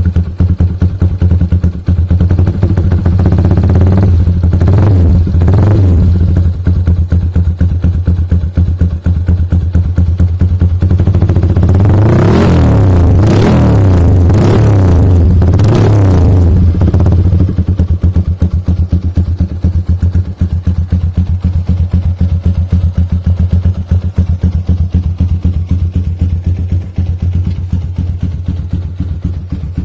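Yamaha Y15ZR's single-cylinder four-stroke engine idling loudly through an SC Project aftermarket exhaust, revved twice briefly about four seconds in and then blipped several times in quick succession around the middle before settling back to idle.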